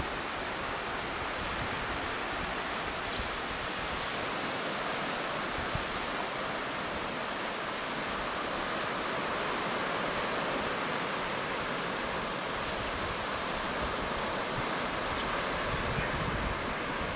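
Surf washing onto a sandy beach, heard as a steady, even hiss.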